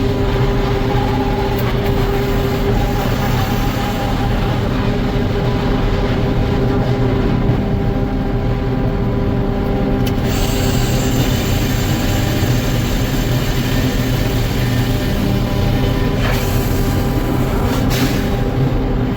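Sawmill machinery running steadily, a loud hum and rumble; about halfway through a higher hiss joins in.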